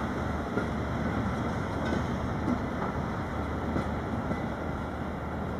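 Train of empty freight flatcars rolling past, a steady rumble and clatter of wheels on rail.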